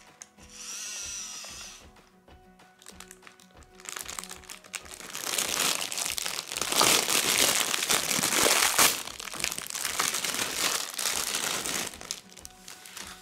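Clear plastic bag crinkling and rustling loudly as hands open a pack of toy round hay bales, densest from about five to twelve seconds in. Before that, a brief electric whine from the RC model tractor's motor, rising and falling.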